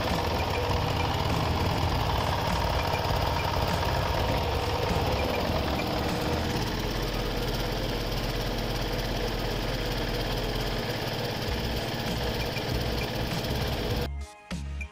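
Diesel generator set's engine running steadily with a low rumble and a knocking beat. Near the end it cuts off and music takes over.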